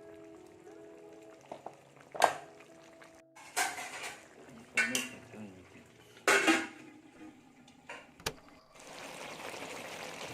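A utensil scraping and knocking against a cooking pan while a simmering tomato sauce is stirred, in about five separate strokes a second or so apart. Faint background music in the first few seconds, and a steady hiss near the end.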